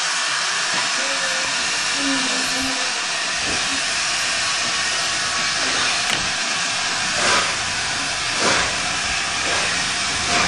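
Steam locomotive, the LNER A4 Pacific Bittern, with a loud, steady hiss of steam, then slow exhaust chuffs about a second apart beginning about seven seconds in as it starts away.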